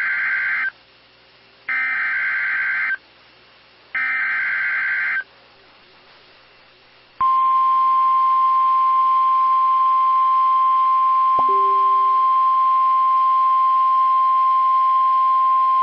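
Emergency Alert System SAME header: three short bursts of buzzing data tones, each about a second long with a second's gap. About two seconds later comes the NOAA Weather Radio 1050 Hz warning alarm, a single steady high tone that starts about seven seconds in and holds. The alert signals a severe thunderstorm warning.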